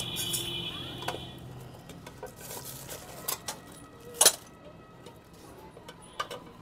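Scattered clicks, knocks and rustling as a hand pulls a Royal Enfield Classic 350's CDI unit and its wiring connectors out of a cloth wrapping; a sharp knock about four seconds in is the loudest. A high steady tone sounds during the first second or so.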